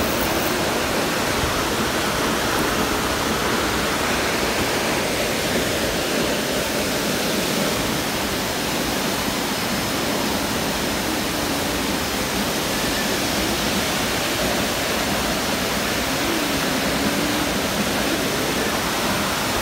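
Waterfall's falling water rushing steadily, a loud, even noise with no breaks.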